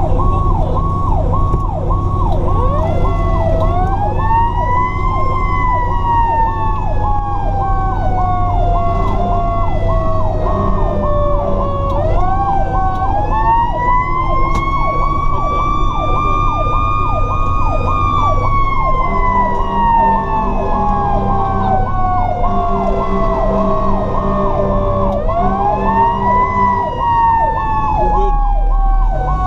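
Fire apparatus responding with sirens on: an electronic siren switches rapidly back and forth between a high and a low tone. Over it a mechanical siren winds up three times to a high howl and slowly coasts back down. A lower horn tone sounds in several short bursts in the second half, over the truck's engine.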